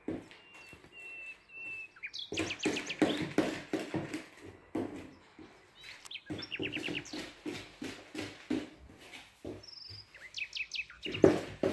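A small bird chirping and singing, with a held whistle early on and several quick trills and sweeping notes, while a spoon knocks and scrapes in a mixing bowl of batter.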